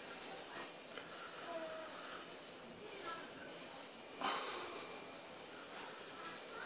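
Black feeder crickets (two-spotted crickets) chirping, a high shrill chirp repeated about twice a second without pause. A single brief knock about four seconds in.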